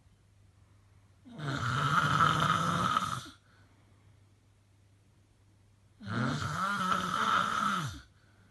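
A person snoring loudly: two long snores of about two seconds each, some four seconds apart, with near-quiet breathing pauses between them.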